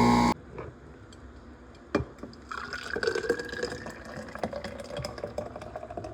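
A motor cuts off just after the start. A knock comes about two seconds in, then liquid is poured into a container, the pitch of the pour rising as it fills.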